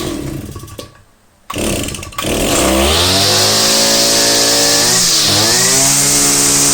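Husqvarna 143R-II brushcutter's two-stroke engine pull-started cold, catching on the second pull about two seconds in. It then runs steadily, with its pitch sagging and picking up again about five seconds in.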